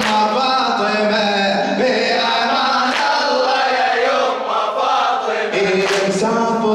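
Male voices chanting a Shia Muharram lament in Arabic, a drawn-out melodic line with held notes that bend in pitch.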